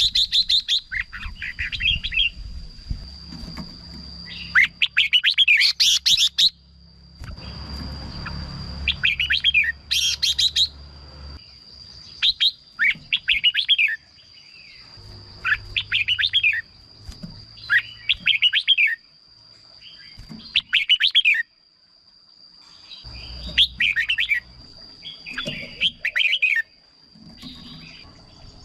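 Red-whiskered bulbul singing: short, quick warbling phrases repeated every second or two, with a steady high-pitched tone in the background.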